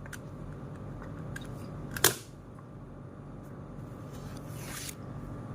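A low steady hum, with one sharp click about two seconds in and a brief rustle near the end.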